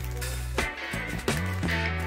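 Background music with a steady beat and a bass line of held low notes.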